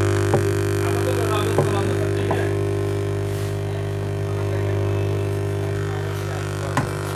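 Microlab M590 2.1 speaker putting out a steady low hum, a drone with several overtones, instead of clear sound: the background-noise fault it was brought in for. A few faint clicks sound over it, one near the end.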